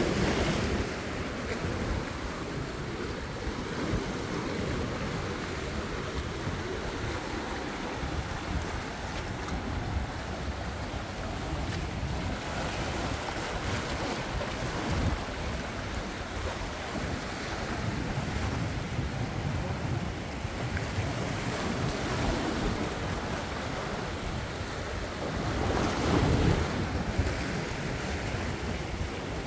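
Sea waves washing in, with wind buffeting the microphone; a wave surges louder near the end.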